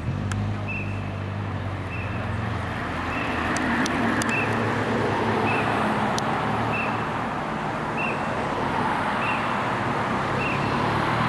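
Mercedes estate team car driving past behind a time-trial cyclist: a steady engine and tyre rush on the road. A short high chirp repeats roughly once a second throughout.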